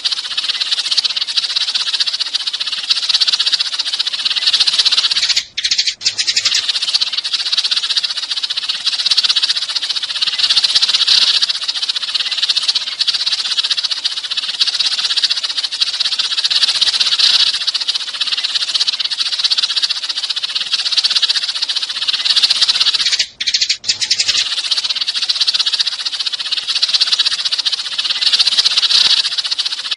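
Many sparrows chirping at once in a dense, unbroken chatter, with two brief gaps at about six and twenty-three seconds in.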